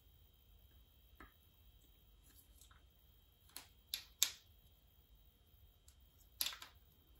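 A few small, sharp metal clicks as a wrist pin is handled and fitted into an old aluminium two-stroke piston, the sharpest about four seconds in.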